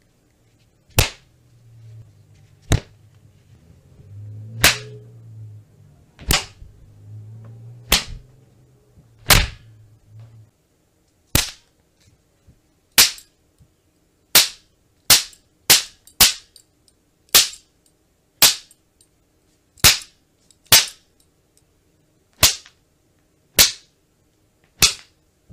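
A series of about nineteen sharp cracks, each a single crisp strike. They come roughly every one and a half seconds at first, then a little faster and less evenly. A low hum runs under them for the first ten seconds and cuts off suddenly.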